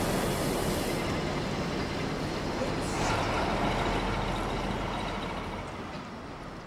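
DB class 212 diesel-hydraulic locomotive running under power as it hauls a railcar away along the track. Its engine and rolling noise fade steadily as the train draws off.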